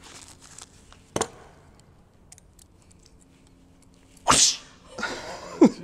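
A single sharp click about a second in; then, about four seconds in, a man's sudden loud outburst of breath followed by a short vocal sound falling in pitch.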